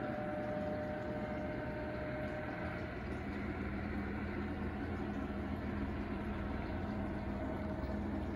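Steady drone of a police helicopter flying at a distance overhead, a low rumble with a faint steady whine.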